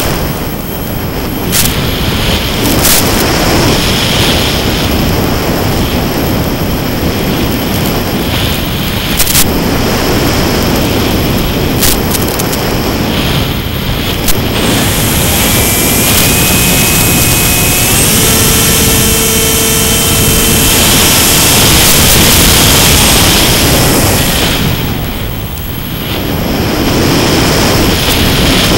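Steady rushing noise of airflow and propeller on board a Mini Skywalker FPV model plane in flight, driven by its electric motor. About 15 seconds in a motor whine comes through, steps up in pitch about 18 seconds in, and fades out a few seconds later. A few short clicks are scattered through.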